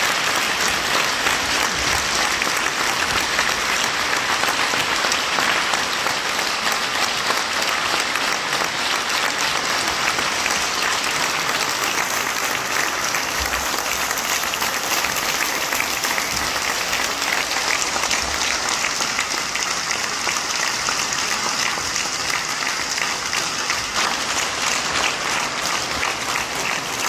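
Concert audience applauding steadily at the end of an organ recital, a dense, unbroken clapping that eases slightly near the end.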